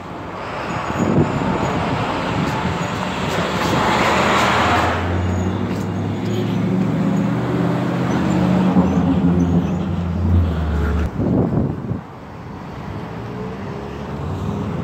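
Street traffic: a passing vehicle's noise swells about four seconds in, then a truck's engine runs nearby as a steady low drone that stops abruptly about eleven seconds in.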